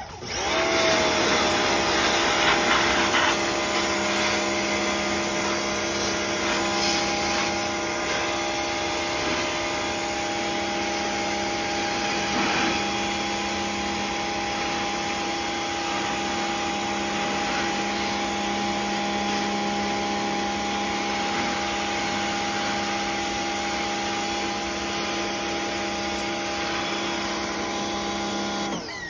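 Electric pressure washer running steadily: the motor and pump hum under the hiss of the water jet blasting Aircraft Remover paint stripper off a bare metal mini bike frame. It comes up to speed within the first second and cuts off near the end.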